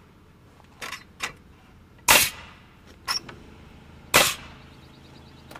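Pneumatic framing nailer firing two loud shots about two seconds apart, with a few lighter clicks and knocks between them, as nails are toe-nailed through a common rafter into the ridge board.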